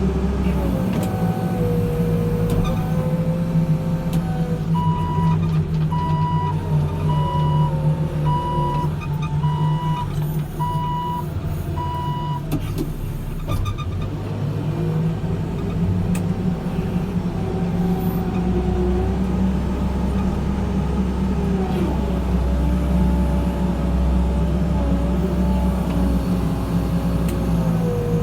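Backhoe loader's diesel engine running under load as it works a muck heap, its pitch rising and falling. About five seconds in, a reversing alarm beeps steadily for roughly eight seconds, then stops.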